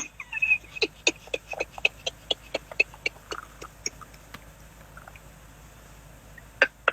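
A rapid series of short sharp clicks or taps, about three a second, thinning out to a few scattered clicks after about four seconds, over faint steady hiss.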